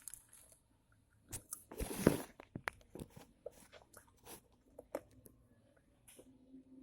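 A person biting into crispy basreng (fried meatball chips), with one loud crunch about two seconds in, then chewing with small, scattered crunches.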